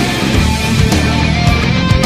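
Loud heavy rock music with distorted guitar and a steady drum beat.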